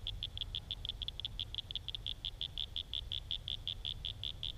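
A frog calling: a steady high-pitched trill of rapid, evenly spaced clicks, about nine a second.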